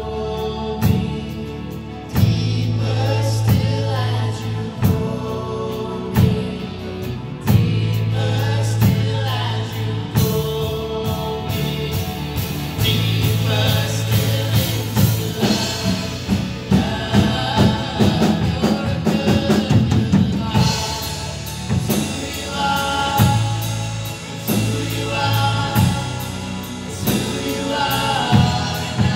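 Live worship band playing a slow worship song: lead and backing singers over strummed acoustic guitars, long held low notes and light percussion that gets busier partway through.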